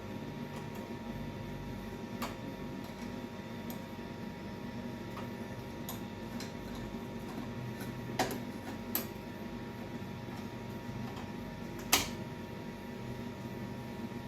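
A few sharp metallic clicks and taps from tools and parts being handled during snowblower repair work, the loudest near the end, over a steady background hum.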